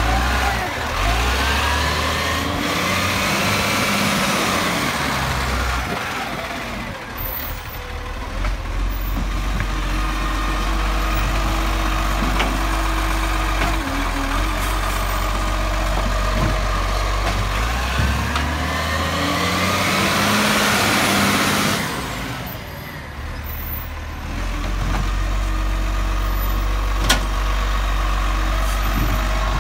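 Side-loader garbage truck's engine running with the hydraulic bin-lift arm of its Bucher GenV 22 body working: twice the engine and hydraulic whine rise and fall in pitch as the arm lifts and tips a wheelie bin into the hopper. A sharp click near the end.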